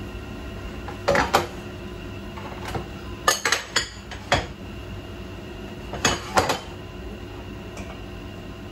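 Stainless steel sauté pan and plate clinking and knocking as the finished pasta is handled and served, in short clusters about a second in, around three to four seconds and around six seconds, over a steady background hum.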